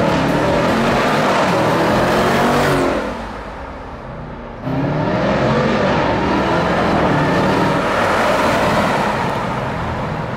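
Jeep Grand Cherokee Trackhawk's supercharged 6.2-litre V8 accelerating hard, its note rising. About three seconds in it eases off, then it comes back on full throttle with a sudden jump in level and pulls hard again.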